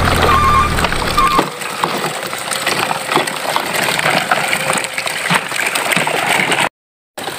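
A low droning hum with short repeated beeps stops about one and a half seconds in. After that, plastic toy trucks rattle and crunch as they roll over dirt and wooden planks, with scattered clicks. The sound drops out completely for a moment near the end.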